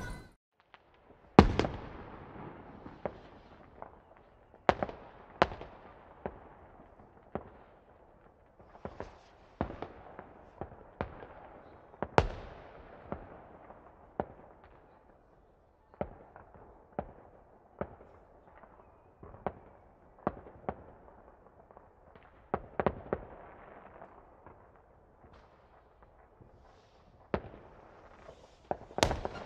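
Fireworks going off: a long string of sharp bangs and pops at irregular intervals, roughly one every second or two, each with a short echoing tail. The loudest bang comes about a second and a half in.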